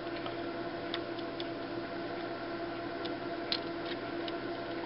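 A few faint, short clicks and taps from a small screwdriver on a plastic HO-scale coupler box, over a steady hum, while the cover screw is backed off so the coupler has enough swing.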